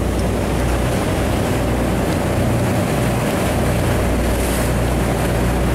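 Steady low hum of a large fishing boat's engine, with wind and sea noise over it.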